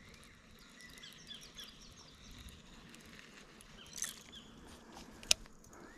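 Faint outdoor ambience with small birds chirping in short, quick, repeated notes, and one sharp click about five seconds in.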